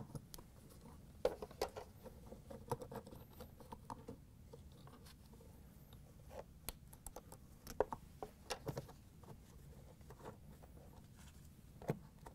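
Faint, irregular clicks and scrapes of a Phillips screwdriver turning out the small mounting screws of a refrigerator dispenser's door solenoid bracket.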